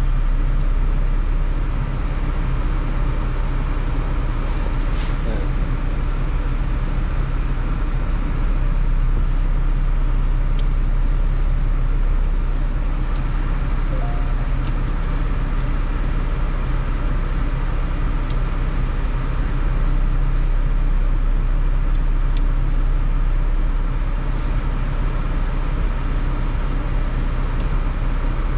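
Steady low vehicle hum, with a few faint short clicks scattered through it.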